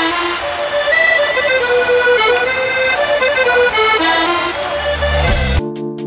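Background music with a lively melody line; about five seconds in, a rising whoosh leads into a different tune of held chords over a quick ticking beat.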